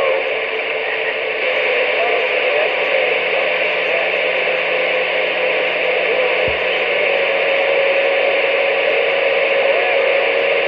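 CB radio receiver putting out a steady wash of static hiss, with faint wavering whistles over it and a steady tone coming in about seven seconds in. A single short click about six and a half seconds in.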